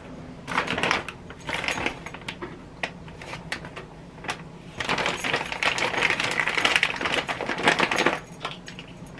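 Wood chunks dropped by hand into a smoker's metal wood-chip cup, clicking and clattering against the metal and each other. A few scattered clicks come first, then a dense run of clatter from about five to eight seconds in, as a handful goes in.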